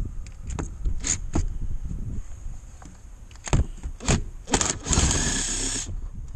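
Cordless drill-driver undoing the valve-cover bolts: several short bursts and clicks, then the motor runs for about a second near the end.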